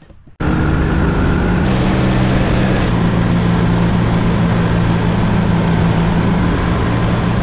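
V-twin cruiser motorcycle at steady highway speed, recorded from the bike: a steady engine drone under loud wind rush. It starts abruptly about half a second in.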